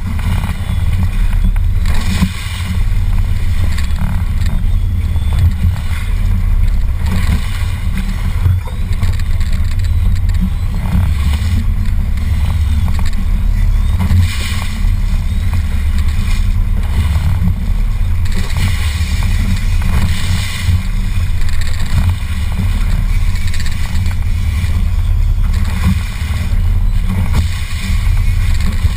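A boat's motor running steadily with a deep, even rumble, under a constant hiss of wind and water as the boat moves across the lake.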